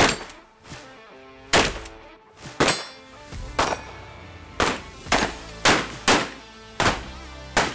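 Background music punctuated by about ten sharp, loud hits at uneven intervals, about one every half to one second.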